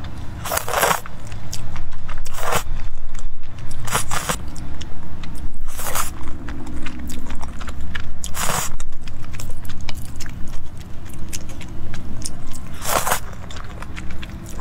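Someone eating saucy noodles with chopsticks: about six short, wet slurps as strands are sucked into the mouth, with chewing in between.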